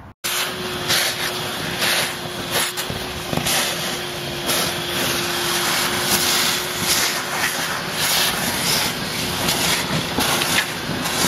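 Shop vac running at full suction with a steady motor whine, its hose nozzle sucking up water and slimy sludge from the bottom of a drained fountain basin. Irregular surges come through as the nozzle gulps air and muck.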